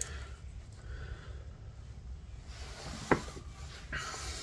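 Faint handling sounds of thread work at a fly-tying vise, with one sharp tick about three seconds in.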